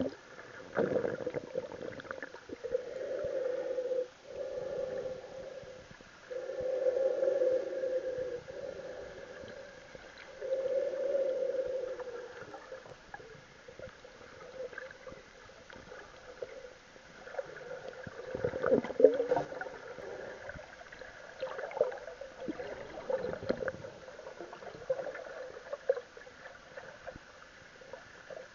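Muffled underwater sound picked up by an action camera sealed in its waterproof housing: water swishing and gurgling in long swells over a low hum, then scattered knocks and rubs against the case, the loudest about two-thirds through.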